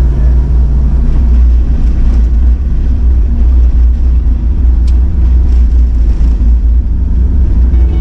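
Four-wheel drive running steadily along a gravel road: even engine drone over a heavy, constant low rumble.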